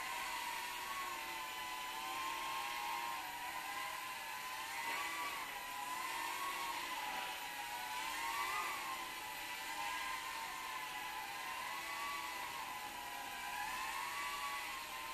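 Micro quadcopter's tiny brushed coreless motors and propellers whining in flight. The pitch wavers up and down as the throttle changes, with the sharpest rise about halfway through.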